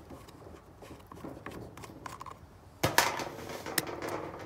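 Parts of a cordless pole saw being handled and fitted together during assembly: scattered clicks and knocks, with a louder clatter about three seconds in.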